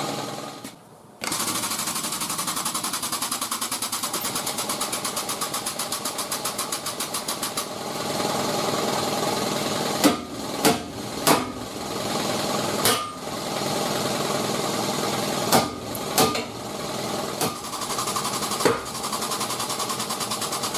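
A pump runs steadily to drive the frame machine's hydraulic ram through a pull, with a rapid pulsing chatter during its first few seconds. From about ten seconds in, a hammer strikes the metal bumper beam about eight times, in sharp separate blows, while it is held under the pull.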